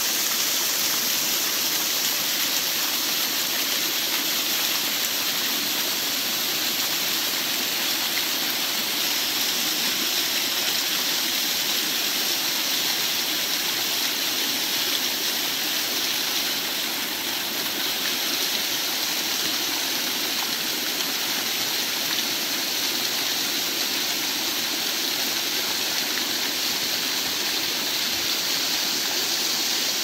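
Waterfall cascading down a rock face and splashing onto the stones below, a steady rushing hiss with no let-up. The flow is up after morning rain.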